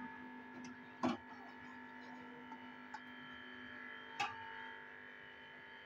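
A slotted metal spoon scraping and knocking against an aluminium pan of fried masala and oil, a few short clinks, the loudest about a second in, over a steady background hum.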